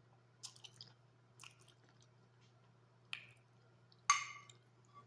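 Close-up chewing of a mouthful of food: a few short separate mouth sounds, the loudest a sharp one about four seconds in that rings briefly.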